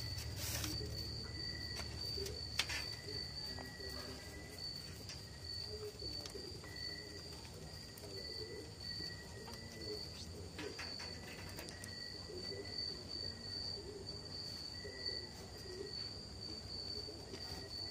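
A cricket's steady high-pitched trill, with a few short clicks, the sharpest a couple of seconds in.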